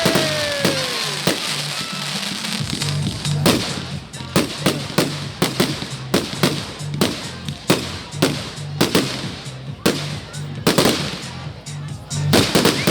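Fireworks going off: a rapid, irregular string of sharp bangs and cracks, several a second at times, with music's low beat pulsing underneath.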